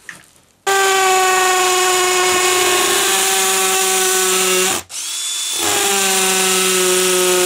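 Cordless drill running at a radiator bracket on the wall in two runs, about four seconds and then about two, with a short pause between. Its motor whine is steady and sags slightly in pitch under load.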